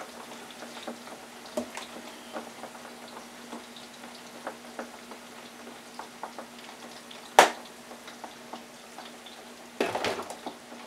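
French fries frying in olive oil in an electric deep fryer: a steady fine crackle and sizzle over a low steady hum. A single sharp click comes about seven seconds in, and a brief clatter near the end.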